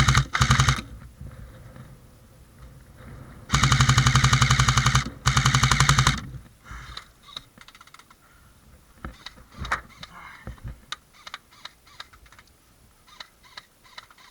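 Airsoft gun firing rapid full-auto bursts: a short one at the start, then two longer ones a few seconds later, followed by faint scattered ticks.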